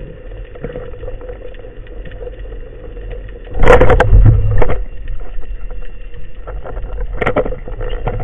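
Underwater noise picked up by a camera mounted on a speargun: a steady low rumble with a faint hum. There is a loud rustling, knocking burst lasting about a second, starting about three and a half seconds in, and a shorter one near the end.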